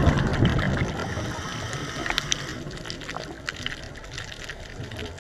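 Scuba diver's exhaled bubbles from the regulator rushing past an underwater camera housing, loudest in the first second, then a quieter steady hiss with scattered small clicks.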